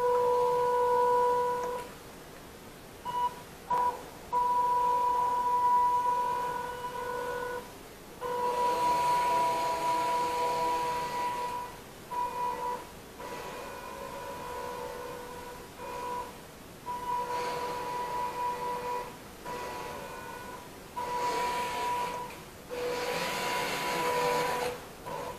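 Electric drive motors of a six-wheel-drive remote-controlled robot whining in short on-off spurts as it is driven. The whine holds one steady pitch and grows harsher and louder during the longer runs.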